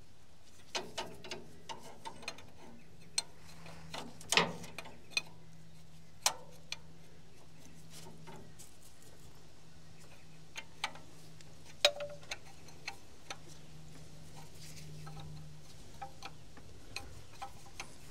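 Irregular metallic clicks and taps of a spanner working on the diesel injector line fittings, a few louder knocks among them, over a faint steady low hum.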